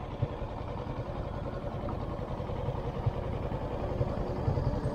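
Motorcycle engine running steadily, slowly getting louder.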